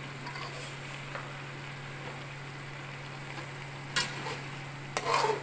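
Spiced lamb pieces sizzling in a large aluminium pot over a gas burner as they are stirred, over a steady low hum. A metal spoon knocks against the pot about four seconds in and twice more near the end.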